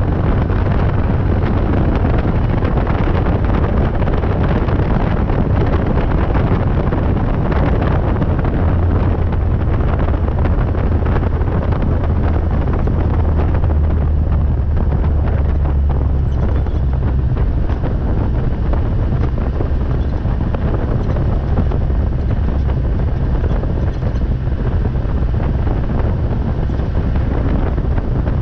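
KTM X-Bow open-cockpit race car at speed, heard from an onboard microphone: heavy wind buffeting on the microphone over engine and road noise, steady and loud, with the low rumble strongest about halfway through.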